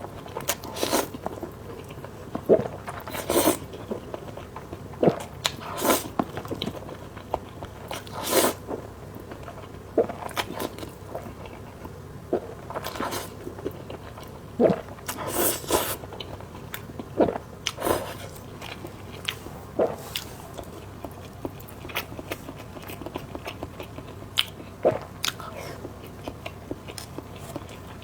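Close-miked eating of spicy fire-chicken noodles: irregular bites and chewing, with sharp, short mouth sounds every second or two.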